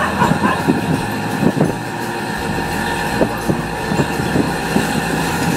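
Auto-rickshaw in motion, heard from inside its open cabin: the small engine runs steadily while the body rattles and clatters with irregular knocks over the road.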